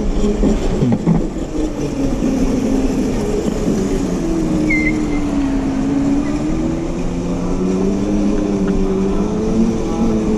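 Razor Crazy Cart's electric drive motor whining as the kart rolls over tile, its pitch falling and then rising again with speed, over a steady rumble of the wheels. A brief high squeak about five seconds in.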